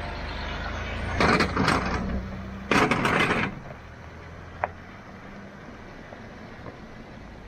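Land Rover Discovery 3's 2.7-litre TDV6 diesel running as it drives past, with two loud rattles, a little over a second and almost three seconds in, as its front and then rear wheels cross a metal cattle grid. The engine sound then fades as it pulls away.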